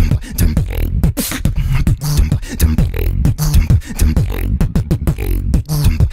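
Beatboxing: a fast mouth-made rhythm of sharp clicks and snare-like hits over short, deep bass pulses and bending vocal tones.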